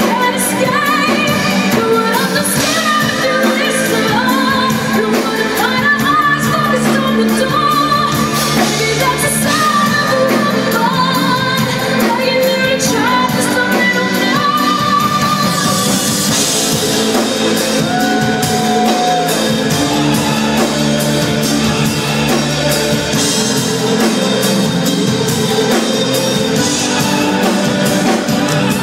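Live pop song in a hall: a woman singing long notes with vibrato over a band with a steady bass pulse.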